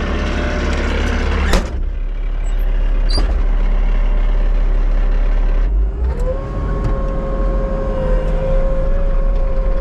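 Bobcat skid steer's diesel engine running with a heavy low rumble, a sharp clack about a second and a half in. About six seconds in the engine revs up, its pitch rising and then holding at a steady higher whine.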